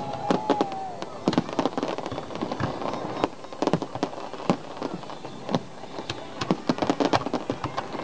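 Fireworks crackling: a dense, irregular run of sharp pops and cracks.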